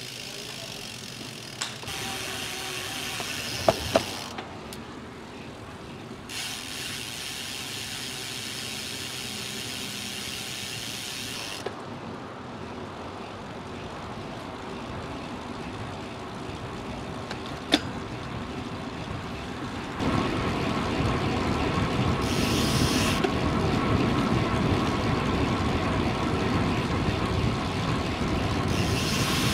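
Road bike on the move: tyre and wind noise, with the rear freewheel hub ratcheting in stretches and a few sharp clicks. The noise gets louder about two-thirds of the way through.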